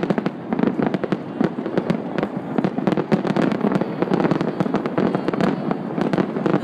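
Fireworks display going off in a rapid, unbroken barrage of bangs and crackles, many reports a second.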